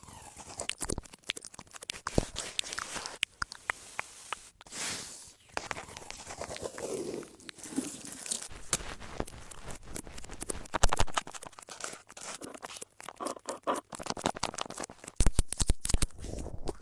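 Close-miked ASMR trigger sounds: a dense run of crackling, crinkling and tearing noises broken by sharp clicks.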